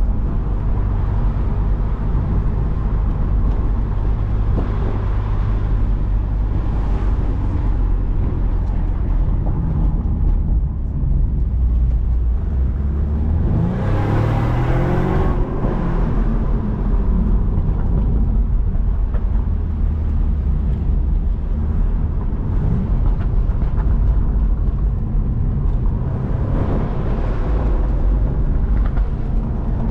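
BMW Z4 convertible's engine running under steady load, with road and wind noise. About halfway through, the revs climb quickly and then settle back.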